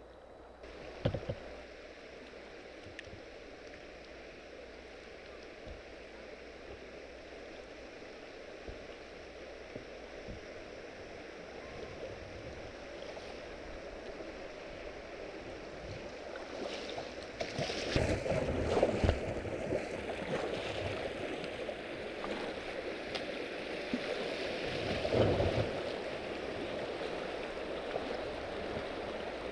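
River water rushing and splashing over a shallow riffle around a kayak's hull, growing louder about halfway through. A few short knocks and splashes stand out over it.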